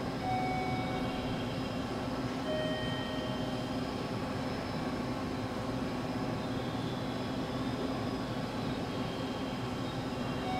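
Steady hum and rumble of a railway station platform with an electric train standing by. A few faint steady tones, each about a second long, come near the start and again near the end.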